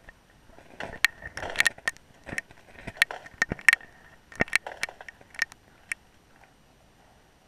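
Irregular sharp clicks and knocks with scratchy noise between them, picked up underwater by a GoPro in its waterproof housing. They stop about six seconds in.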